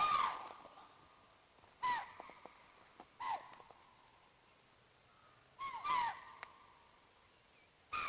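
An animal calling: short, sharp calls that each drop in pitch, coming every second or two, with a quick pair near the end.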